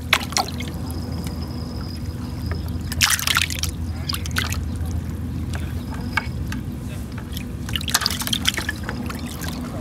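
Water splashing and trickling in a plastic bucket holding live needlefish, in short bursts about three seconds in and again near the end as a hand dips into the bucket, over a steady low background rumble.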